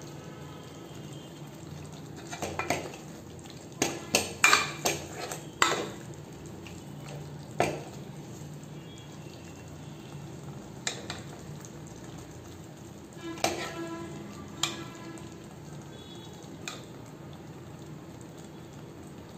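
Metal ladle clinking against the sides of a metal cooking pot while it stirs and scoops thick brinjal gravy. There is a quick run of clinks a few seconds in, then single clinks spaced out through the rest.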